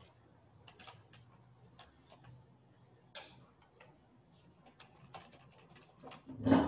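Computer keyboard being typed on: scattered, irregular light key clicks. A louder, brief noise comes right at the end.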